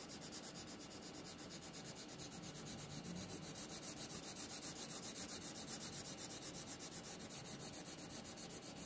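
Orange colored pencil scratching on paper as a section is shaded in with rapid, even back-and-forth strokes, about eight a second, growing a little louder partway through.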